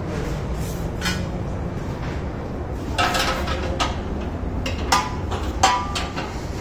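Steel spanner clinking against nuts, bolts and the steel tube frame of a mini crane stand as its bolts are tightened: sharp metallic clinks about a second in, a cluster with a brief ring around three seconds in, and a few more near the end, over a steady low hum.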